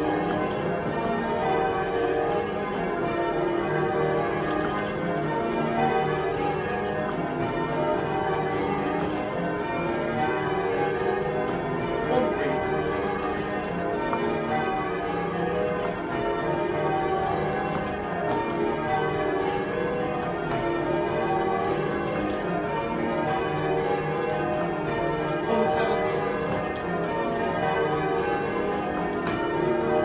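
A set of bells ringing continuously, many strokes following each other closely so that the tones overlap.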